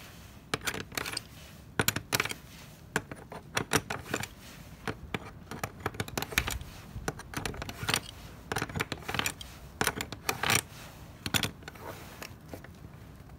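Stainless steel gasoline deck fill cap being turned and screwed into its deck fitting with a metal cap key: irregular metallic clicks, clinks and scrapes.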